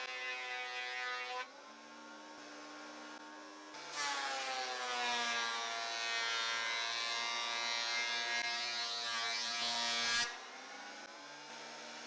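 Portable thickness planer running with its motor whining steadily. About four seconds in, a cedar board feeds through: a loud cutting noise sets in and the motor's pitch drops under the load. Near ten seconds the board clears, the cutting stops and the motor runs free again.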